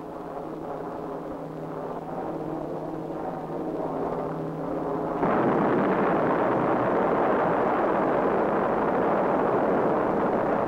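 Propeller aircraft engines droning at a steady pitch, slowly growing louder. About five seconds in they are cut off by the sudden, loud, sustained rumble of a huge explosion.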